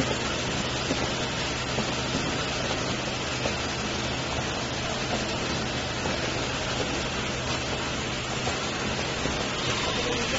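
Automatic bottle filling and capping line running: a steady hiss of machine noise over a low hum, with light clicks now and then.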